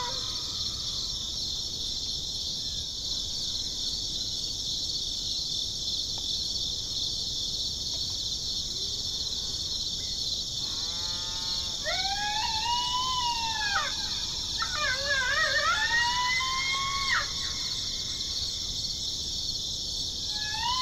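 Steady high chorus of crickets. About halfway through, a quick run of coyote yips and then two long howls rising and falling with a waver, played from an electronic predator call.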